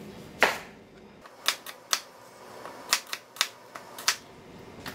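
Chef's knife cutting a yellow onion into wedges on a plastic cutting board: about nine sharp knocks of the blade striking the board, the loudest about half a second in, the rest in irregular clusters.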